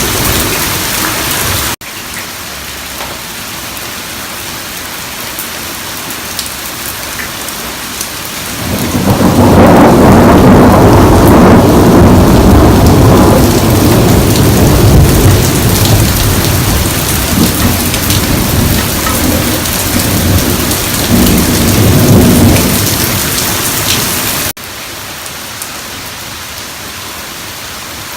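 Heavy rain pouring down, with a long, loud roll of thunder that swells about a third of the way in and rumbles on for some fifteen seconds. The rain sound changes abruptly twice where the recording is cut.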